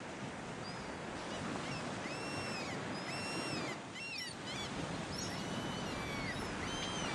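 Seabirds calling again and again over the steady rush of the open sea; each call is short and high, rising and falling, with a quick cluster of calls around the middle.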